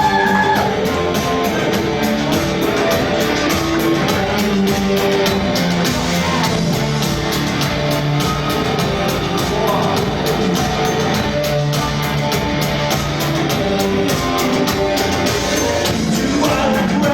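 Live band music played loud in a club, with a fast steady beat, held pitched tones and a singing voice.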